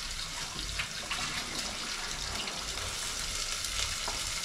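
Food frying in a pan on the stove: a steady hiss, with a few light clicks of a spatula stirring against the pan.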